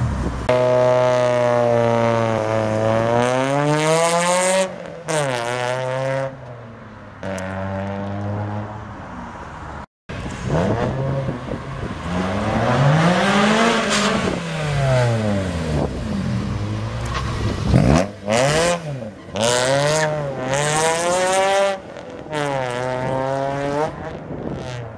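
Honda Civic hatchback with a loud aftermarket exhaust, revved hard as it pulls away. The engine note climbs and drops again and again through revs and gear changes. It breaks off briefly about ten seconds in, then the climbing and falling revs start again.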